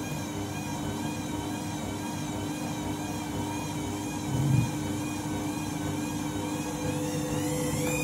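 Candy front-loading washing machine's drum motor whining as the drum turns with an unbalanced load. The whine wavers up and down in pitch, with a short low thud about four and a half seconds in. Just before the end the pitch starts to climb as the drum speeds up.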